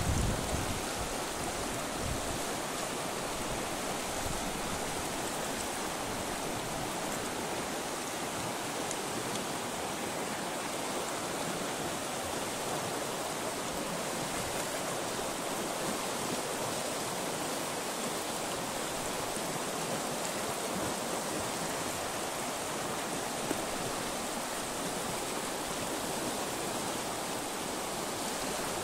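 Fast mountain river rushing in a strong current, a steady even rush of water with no break.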